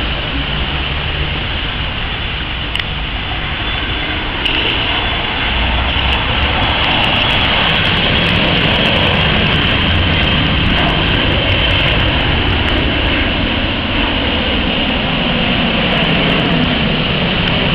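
Embraer E170 jet airliner's two turbofan engines at takeoff power during the takeoff roll and climb-out: a steady jet rush that grows louder about four seconds in and holds, with a high whine over it.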